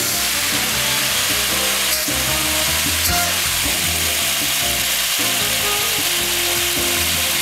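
Background music over a steady hiss.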